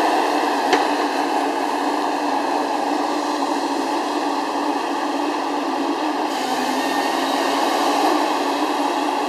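A Gremo 1050H forestry harvester running steadily under load, its engine and hydraulics droning as the crane swings the harvester head. There is one short knock under a second in.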